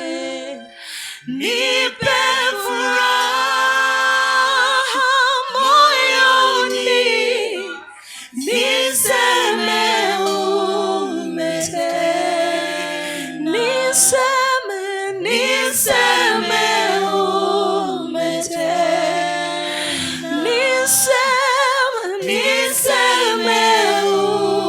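Worship singers singing a cappella, several voices in long sustained phrases with wavering held notes. The singing breaks off briefly about a second in and again around eight seconds.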